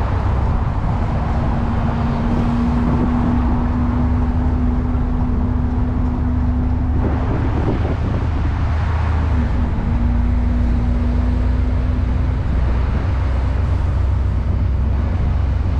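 Open-top double-decker tour bus driving through city traffic, heard from its upper deck: a steady engine rumble with a low drone that drops out for a couple of seconds about halfway through.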